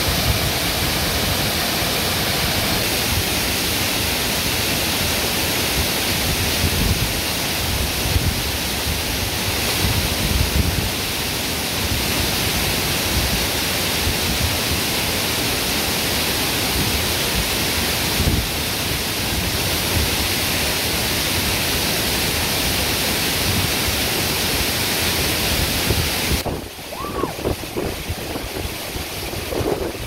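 A waterfall rushing in a dense, steady roar of falling water. It drops off sharply and gets quieter near the end.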